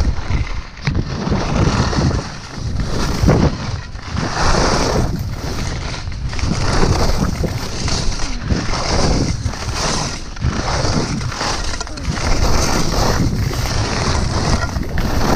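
Wind rushing over the microphone during a fast ski descent, with skis hissing and scraping over packed snow in swells that rise and fall with each turn.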